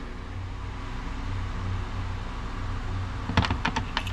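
Steady low hum, with a quick cluster of sharp clicks and taps about three seconds in from hand tools and the balun's small plastic enclosure being handled.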